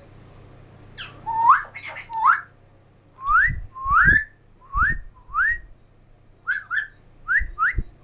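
African grey parrot whistling a string of short upward-sliding whistles, one after another, with a few low thumps in between.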